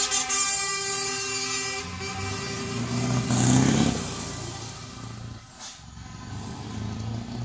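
Truck air horn sounding a steady blast that stops about two seconds in. Then the diesel engines of trailerless tractor units drive past, loudest as one goes by close a little after three seconds, fading, and then rising again as the next approaches.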